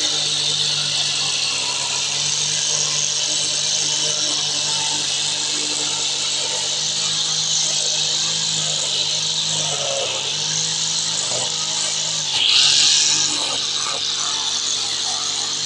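Brush cutter running at a steady speed as it cuts grass, with one brief louder surge about three-quarters of the way through.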